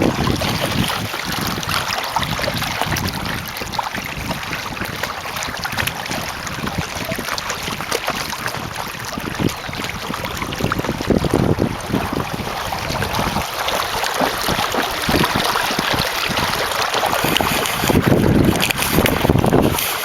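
Wind buffeting the microphone in gusts, with water rushing and splashing along an inflatable kayak under sail. The gusts are strongest near the end.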